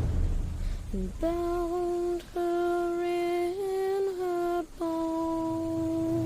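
A lone voice singing a slow, mournful shanty melody in long held notes, starting about a second in, with a few short breaths between notes.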